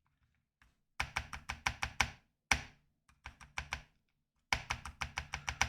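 Typing on an AKKO MU01 mechanical keyboard with a wooden case, its stock white foam dampening still fitted. The keystrokes come in three quick runs of sharp clicks, with one lone keystroke between the first two.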